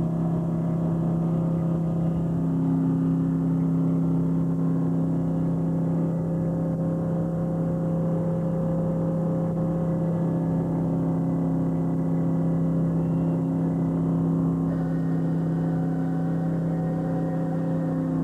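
Fishing trawler's diesel engine running steadily, a constant low drone with a second, higher hum that fades in and out a few times.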